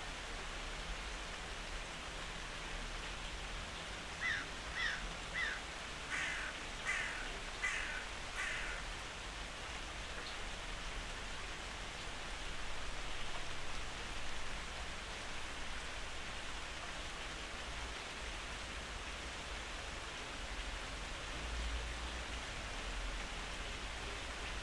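A steady hiss, with a short animal call repeated about eight times in quick succession from about four to nine seconds in.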